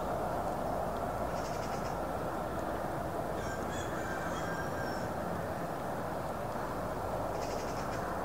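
Steady wind noise on the microphone. A waterbird calls for about a second and a half near the middle, and two short bursts of fast rattling come early and near the end.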